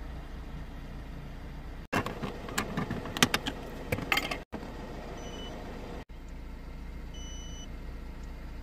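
Irregular plastic clicking and rattling for a couple of seconds as a diagnostic scanner's cable plug is pushed into the car's OBD port under the dashboard, over the steady low hum of the idling engine. Later come two short, high electronic beeps.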